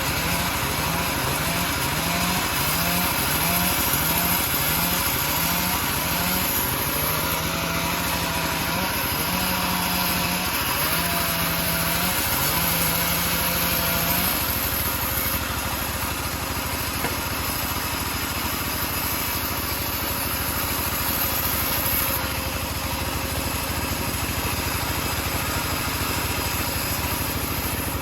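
Engine of a homemade bandsaw sawmill running steadily while the mill saws teak. Through the first half a short rising tone repeats about once a second, then draws out into longer tones and stops about halfway.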